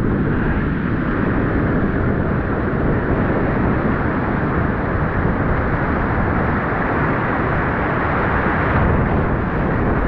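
Churning surf and whitewater rushing steadily, heard close up at the water's surface.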